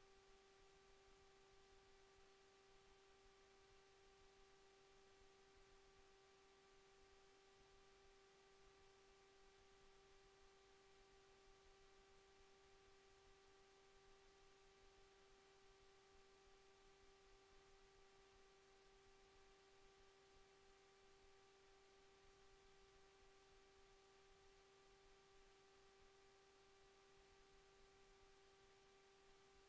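Near silence, with a faint steady high hum: one unchanging pitch with weaker overtones above it.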